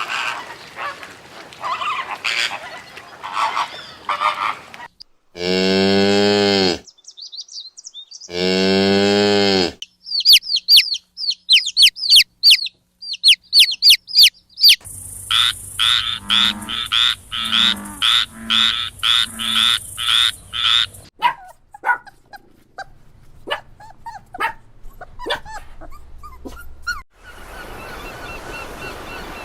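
A string of different animal calls. The loudest are two long, low moos from cattle, each about a second and a half, around six and nine seconds in. They are followed by rapid high chirping, then a rhythmic run of repeated calls, and then scattered clicks.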